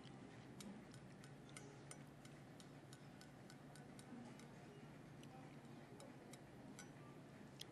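Faint, irregular light clicks of chopsticks touching a ceramic plate, over a low steady hum.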